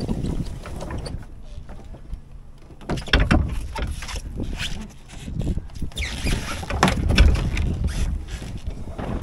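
A small sailing boat getting under way: wind rumbling on the microphone and water rushing against the hull. Sharp knocks and clatter of gear come about three seconds in and again near seven seconds.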